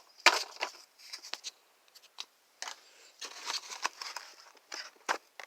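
Rustling, crinkling and light clicks from a small box and its packaging being opened and rummaged through by hand, in short irregular bursts.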